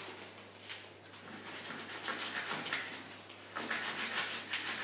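Plastic food packaging crinkling and rustling as it is cut and pulled open with a knife, faint at first and busier from about a second and a half in.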